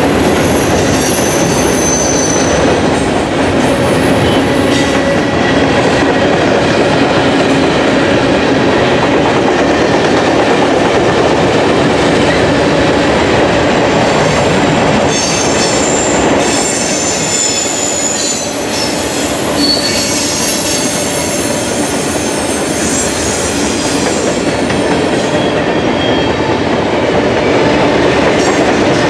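Freight train of covered hoppers and tank cars rolling steadily past at close range: a loud, continuous rumble of wheels on rail, with high-pitched wheel squeals coming and going.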